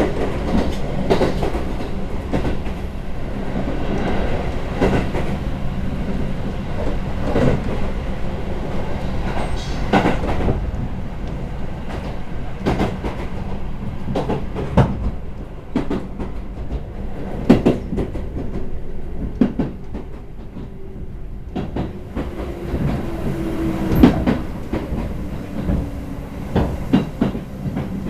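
Chichibu Railway express train running, heard inside the passenger car: a steady low rumble of wheels on track with irregular clacks over the rail joints. A faint whine falls slowly in pitch in the second half.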